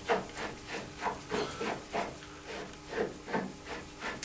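Threaded nose cap of a Colchester Student lathe collet chuck being turned by hand, metal rubbing on metal in short repeated scrapes, about three a second, as it is unscrewed to release the collet.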